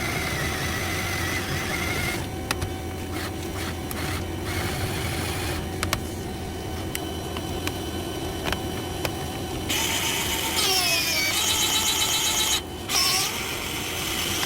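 A machine running steadily with a low hum, with scattered sharp clicks and, for the last few seconds, squeaky gliding tones over a fast rattle.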